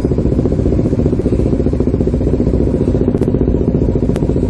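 Motorcycle engines idling close by, a steady low, rapidly pulsing drone. Two short sharp clicks sound about three and four seconds in.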